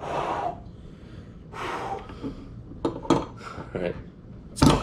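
Solid-metal army-man bottle opener clicking against the crown cap of a glass beer bottle as it is fitted and levered. Near the end comes a sharp pop as the cap comes off, followed by a ringing metallic clink. Two breathy exhales come early on.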